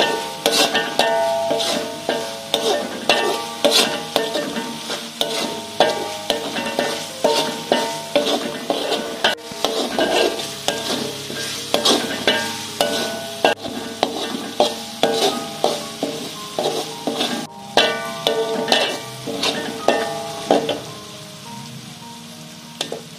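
Metal slotted spatula scraping and knocking against a metal wok, stirring a chili spice paste frying in oil, with sizzling underneath. The strokes come about twice a second and stop near the end, leaving a quieter sizzle.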